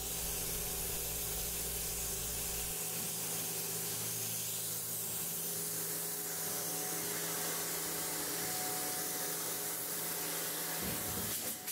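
Steady hiss of polyurea spray equipment, with a low machine hum under it whose deepest part drops away a little under three seconds in.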